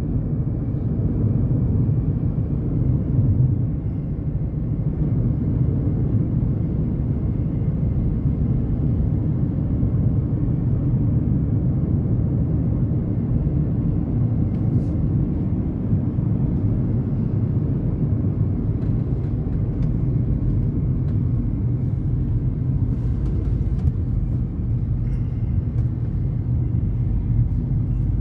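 A Honda Element driving at steady speed, heard from inside the cabin: an even, low rumble of engine and tyre noise on the road.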